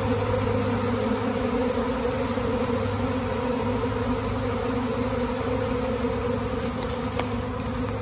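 Honeybee swarm buzzing: a steady, dense hum of many bees on the wing as the swarm gathers on and goes into a hive box.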